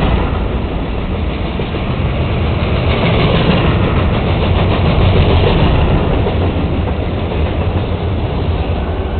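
Freight train of open-top hopper cars rolling past close by: a loud, steady rumble and clatter of steel wheels on rail. A Norfolk Southern diesel locomotive draws near at the rear of the train toward the end.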